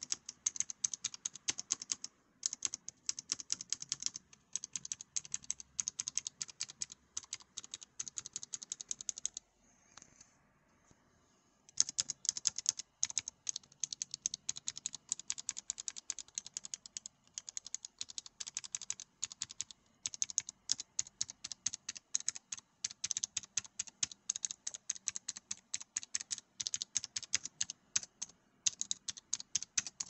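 Fast, continuous typing on a Vissles LP85 low-profile optical-switch mechanical keyboard: dense, crisp key clicks, broken once by a pause of about two seconds around ten seconds in.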